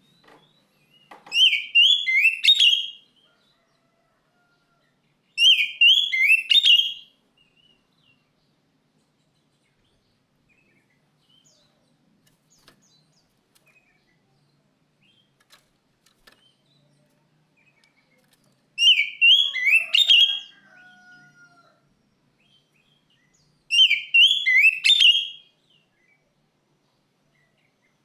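Oriental magpie-robin singing in four short bursts of rapid, sweeping notes, each about a second and a half long, separated by pauses.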